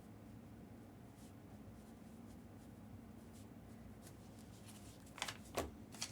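Steady low room hum with faint handling rustles, then three or four sharp clacks in quick succession about five seconds in, typical of boxes and packaging being handled on a table.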